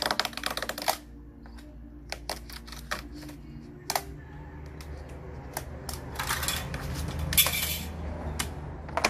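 A steel tape measure rattles in a rapid run of clicks for about a second, followed by scattered sharp taps and, near the end, a longer scraping rustle as the PVC ceiling panels are handled and marked.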